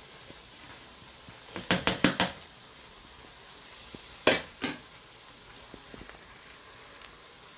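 A spoon and a plastic bowl knocking against a stainless-steel cooking pot as sliced meat is scraped in: a quick run of four or five sharp clatters about two seconds in, then two more knocks a couple of seconds later.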